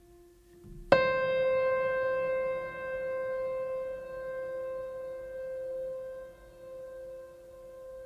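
Soft background music: over a faint held tone, a single note is struck about a second in and rings on with a long, slowly fading, wavering decay.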